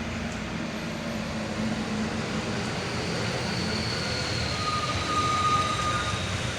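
A heavy vehicle passing with a steady rumble. Thin, high squealing tones come in during the second half, one slowly falling in pitch.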